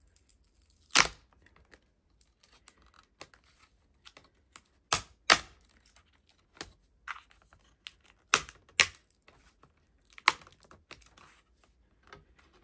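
Thin metal keyboard backing plate being pried up off a laptop's top case: an uneven series of sharp cracks and clicks as it comes away, the loudest about a second in and around five, eight and ten seconds, with fainter ticks between. The plate is bending as it is pulled free.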